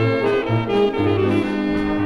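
Dance-orchestra recording with a horn section of trumpets, trombones and saxophones playing the melody over a bass line that moves note by note, about two notes a second.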